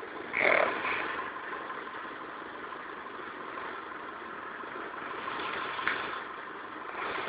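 An animal snoring in its sleep: a steady noisy rasp, with a louder breath about half a second in.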